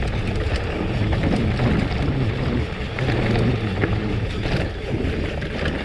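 Wind rushing over the microphone while an electric mountain bike rolls fast down a dirt track, with tyre rumble and short rattles and clicks from the bike over the rough ground.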